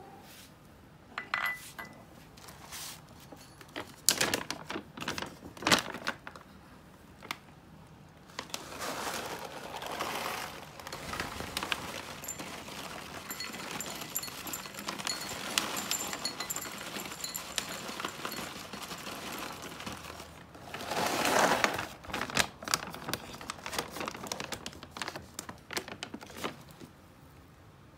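A bag of Royal Canin Persian dry cat food crinkling as it is handled, and dry kibble poured from it, rattling and clicking into a small glass bowl. Sharp clicks and ticks come in the first few seconds and again near the end, with a spell of rustling in the middle.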